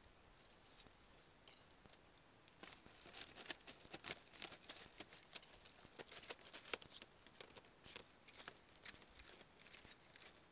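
Faint, irregular patter of light clicks and small splashes, several a second, from someone wading through shallow water on a reef flat. It starts a couple of seconds in.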